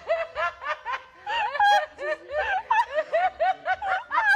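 High-pitched laughter: a rapid run of short laughs, about three to four a second.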